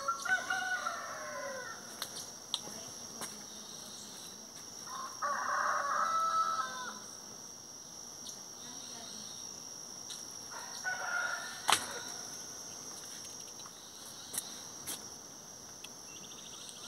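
A bird calling three times: a short falling call at the start, a longer call of about two seconds midway, and a short call just before a sharp click. Under it runs a steady high-pitched insect drone.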